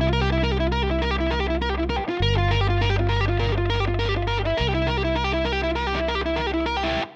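Overdriven electric guitar playing a fast picked lead line of even, rapid notes over a backing groove whose low bass notes move between the Gm7 and C chords about every two and a half seconds.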